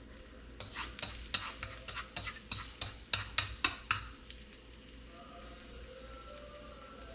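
Long wooden chopsticks stirring sliced garlic in a nonstick wok, clicking and scraping against the pan about a dozen times in the first half, over a light sizzle of garlic frying in oil. The stirring stops about four seconds in, leaving only the sizzle.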